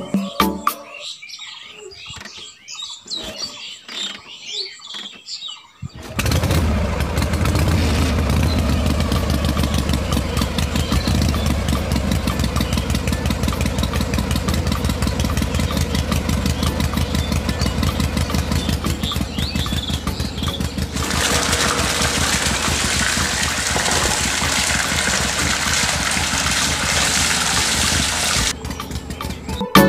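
Small electric motor of a miniature homemade juice crusher switching on suddenly and running steadily with a fast buzzing whir. About two-thirds of the way through, the sound turns hissier and brighter, and it cuts off near the end. Before the motor starts there are only faint scattered clicks.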